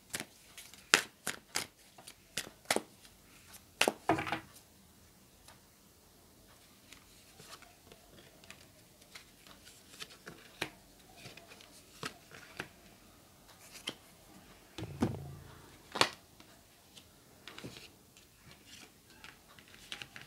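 Tarot cards being handled: a quick run of card snaps from shuffling the deck over the first few seconds, then scattered soft taps and slides as single cards are dealt onto a fabric-covered table, with one duller thump about three-quarters of the way through.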